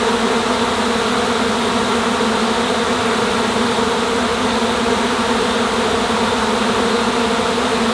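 A disturbed honeybee swarm buzzing in a loud, steady hum of many wings, with a clear droning pitch. The bees, shaken from their cluster on a tree limb, are flying and re-settling on the branch.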